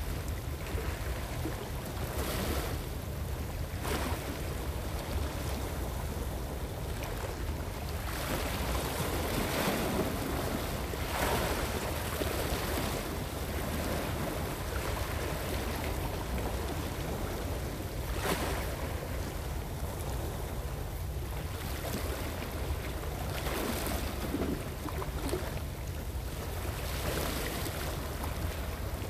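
Small sea waves washing against shore rocks, swelling every few seconds, with wind rumbling on the microphone.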